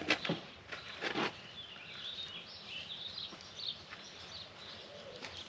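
Birds chirping in the background, with a few sharp knocks or clatters in the first second and a half.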